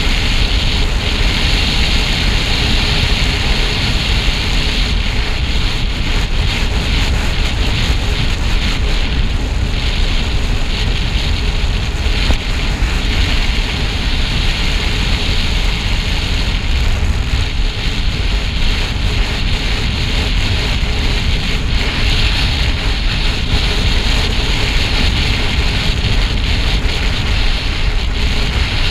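Steady, loud rush of wind buffeting the camera's microphone from a fast road-bike descent.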